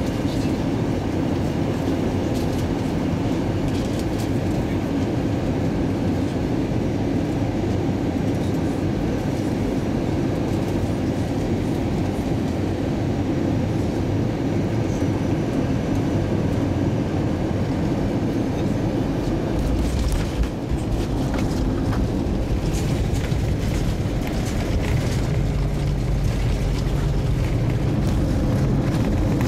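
Airbus A320 passenger-cabin noise on final approach: a steady rush of engines and airflow. About two-thirds of the way through, the wheels touch down and a deeper rumble with scattered knocks from the gear rolling on the runway joins in, growing slightly louder toward the end.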